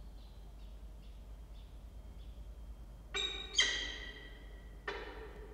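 Peregrine falcon chick giving faint, rapid high peeps, about three a second, while being fed. About three seconds in come three louder ringing tones, each starting suddenly and fading away, the middle one the loudest.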